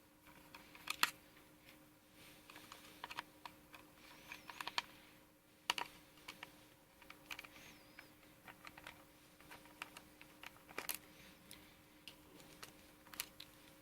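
Scattered small clicks and taps of a screwdriver working the hard-drive bracket screws out of a MacBook Pro's aluminium chassis, with a faint steady hum underneath.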